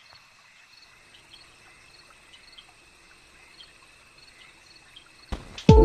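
Faint insect chirping over a steady high-pitched drone. Near the end, music starts abruptly with a falling swoosh.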